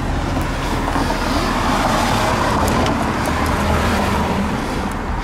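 A car driving past on the street: engine and tyre noise swells to a peak a couple of seconds in, then fades.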